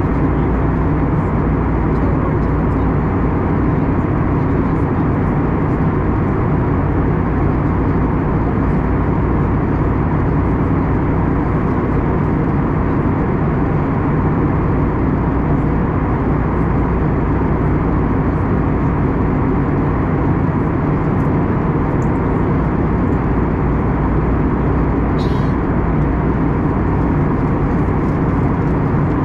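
Steady cabin noise of an Airbus A321neo in flight, heard inside the cabin: an even drone of jet engines and rushing air, with a few faint steady low hums.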